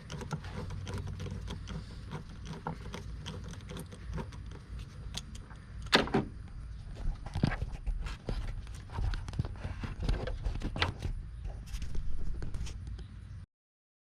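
Irregular clicks and knocks of hands working a metal pipe clamp and the rubber intake boot at the throttle body, the loudest knock about six seconds in. The sound cuts off suddenly near the end.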